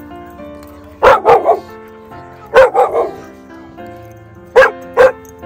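A dog barking loudly in short groups: three quick barks about a second in, three more midway and two near the end, over steady background music.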